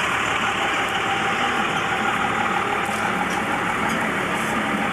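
A motor vehicle's engine running steadily over a constant wash of outdoor noise.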